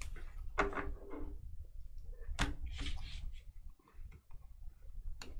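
Sports cards and plastic toploaders being handled on a table: scattered light clicks and rustles, with a sharper tap about two and a half seconds in and a couple more clicks near the end.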